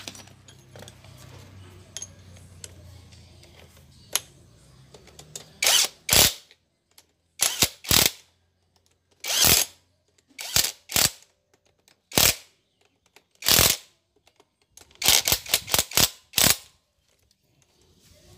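Cordless drill driving bolts into a motorcycle engine. Its motor hums faintly at first, then it runs in about a dozen short bursts, several in quick succession near the end.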